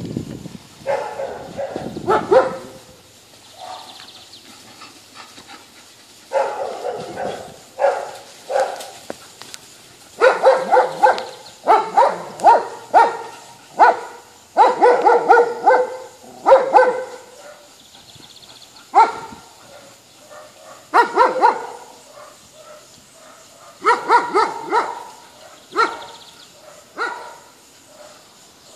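Dogs barking in repeated bouts of several barks each, with short pauses between bouts and a long, dense run of barking in the middle.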